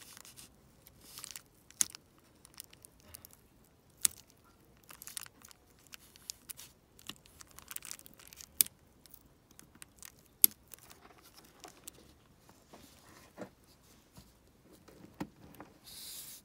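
Clear plastic around a small lock crinkling and rustling in short bursts as it is handled, with a handful of sharp small clicks from the lock and tools.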